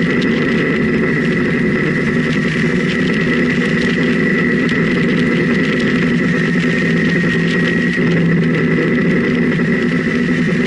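Motorcycle engine running at a steady cruise, heard from a camera on the bike, with wind noise over it and a steady high whine above the engine hum.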